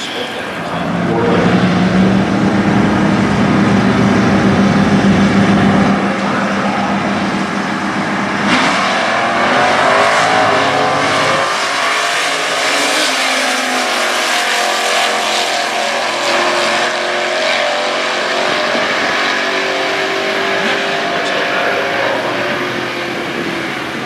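Two Stock Eliminator drag cars, a Camaro and a Chevelle, hold their engines at a steady high rev on the starting line. They launch hard about eight seconds in and accelerate away down the strip, the engine notes rising and changing as they pull through the gears, then fading slightly near the end.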